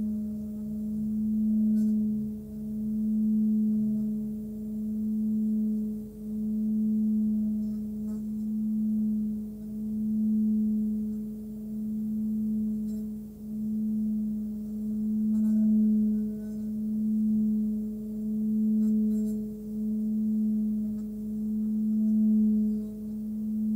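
Nepalese singing bowl, 18.5 cm across, sung by rubbing a padded stick around its rim. It gives a steady hum at about 213 Hz, between G-sharp and A, with fainter higher overtones, swelling and ebbing every second or two.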